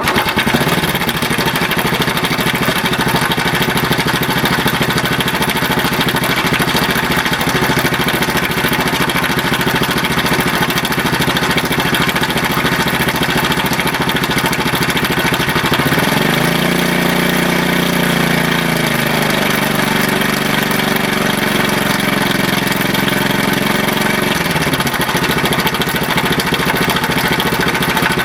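Honda Super Cub's air-cooled single-cylinder four-stroke engine running at idle with the abnormal noise of a faulty cam chain. About 16 seconds in it is revved up and held higher for around eight seconds, then drops back to idle.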